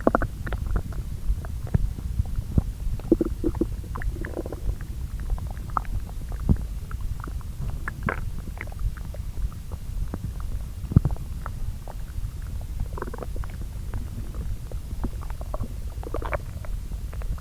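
Human lower-intestine sounds from two spots on the belly, recorded and layered: the guts churning their contents during digestion. A steady low rumble runs underneath, with frequent small pops and clicks and a few short gurgles.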